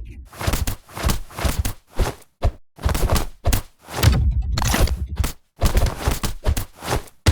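Fight sound effects for an action film: a rapid run of hits and thuds, one after another, with short gaps between them.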